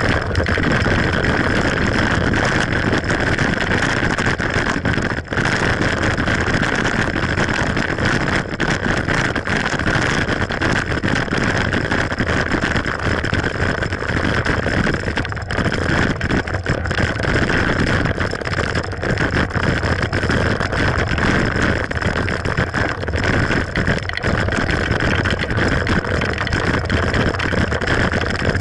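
Mountain bike being ridden along a trail: a steady rush of wind and tyre noise, broken by many small knocks and rattles.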